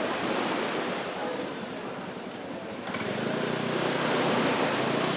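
Steady rushing water noise, joined about three seconds in by a low steady hum.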